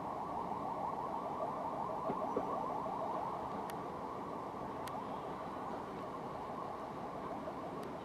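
Steady rumble of a distant approaching train hauled by a PKP EU07 electric locomotive.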